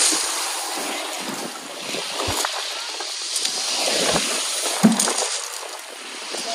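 Sea waves breaking and washing over a shingle beach, the surf swelling and ebbing, with one sharp click about five seconds in.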